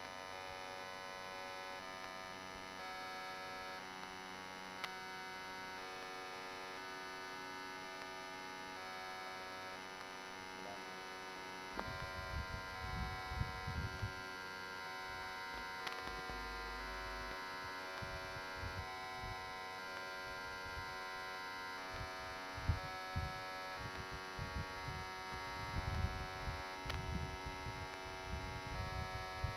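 Steady electrical mains hum from a sound system, carrying many steady tones at once. From about twelve seconds in come irregular low bumps and rumbles, like handling or knocks on a microphone.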